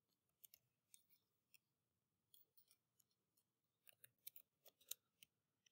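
Faint keystrokes on a computer keyboard: a few isolated clicks at first, then a run of typing near the end.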